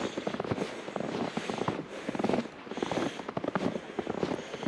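Footsteps crunching through fresh snow, a cluster of crisp crackles with each step, about one step a second.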